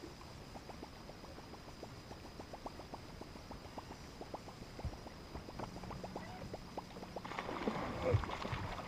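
Topwater musky lure gurgling and plopping across the surface as it is reeled in, a steady run of small watery plips several times a second. About seven seconds in, a louder splashing surge as a musky strikes at the lure.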